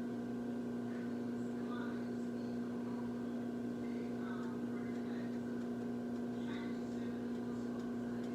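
Steady mechanical hum of a kitchen appliance or fan, even in level throughout, with faint distant voices now and then.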